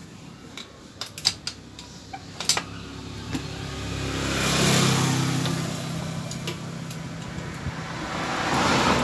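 A few sharp clicks, then a motor vehicle passing by: engine and road noise swell up to a peak about halfway through and fade, and a second one swells again near the end.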